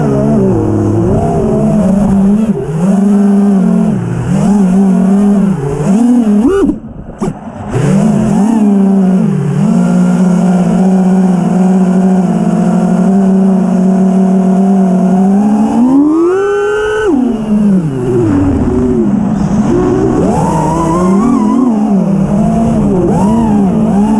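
Motors and propellers of a 5-inch 6S FPV freestyle quadcopter (iFlight Xing-E 2207 1800kv motors, HQProps 5x4.3) whining as they are flown, the pitch rising and falling with the throttle. The sound drops away briefly about seven seconds in, holds at a steady pitch through the middle, then surges up in pitch about two-thirds of the way through and again at the end.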